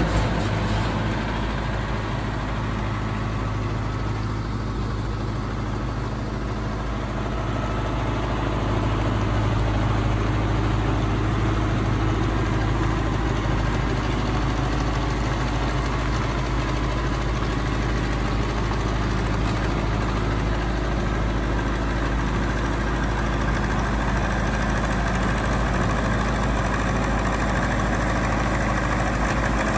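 An engine idling steadily, a continuous low drone that gets a little louder about eight seconds in.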